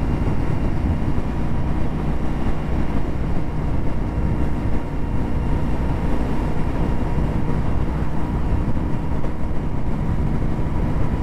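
Indian FTR 1200's V-twin engine running at a steady cruising speed, mixed with wind and road noise on the motorcycle's camera microphone. There are no revs or gear changes.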